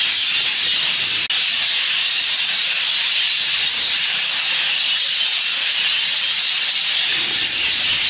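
The massed chatter of many budgerigars in a breeding room, blending into a steady, hiss-like wash. It breaks for an instant with a click about a second in.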